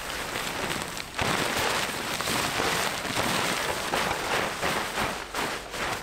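Camping gear rustling and crackling as it is handled and packed away, with a short break about a second in.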